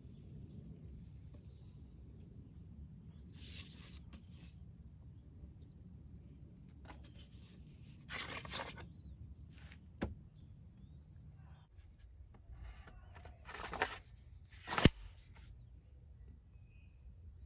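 Steel blade of a homemade cane sword being drawn from and slid back into its wooden cane: a few short scraping slides and sharp clicks, the loudest a single sharp click near the end.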